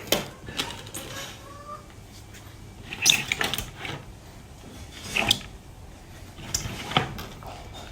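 A few separate knocks and clatters, about two seconds apart, over a quiet background.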